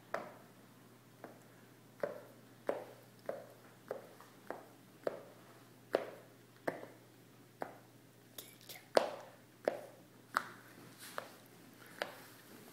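A series of light knocks or taps, about one every half second to a second, some louder than others, with the loudest about nine seconds in.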